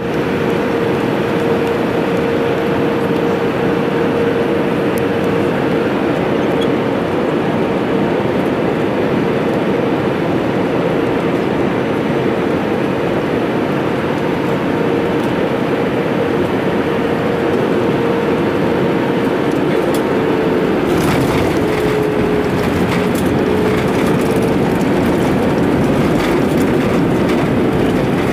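Cabin noise of an Airbus A319 landing: a steady rush of engine and airflow with a steady whine through it. About two-thirds of the way through, the noise turns harsher with rattling as the wheels meet the runway and the aircraft rolls out.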